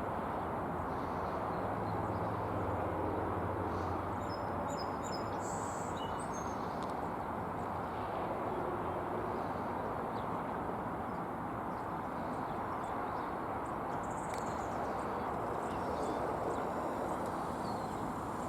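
Steady outdoor background noise with small birds chirping now and then: a cluster of short, high chirps about four to seven seconds in and a few more near fifteen seconds.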